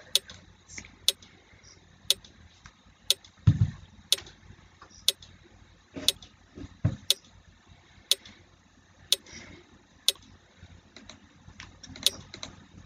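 Quiz countdown timer ticking: one sharp click a second, evenly spaced, with a soft low thump about three and a half seconds in.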